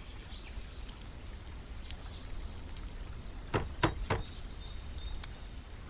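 Quiet steady background ambience, with three short sharp knocks in quick succession a little past the middle.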